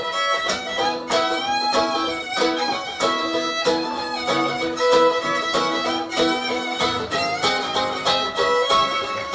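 Live instrumental folk tune: a fiddle plays the melody over a strummed acoustic guitar keeping a steady rhythm.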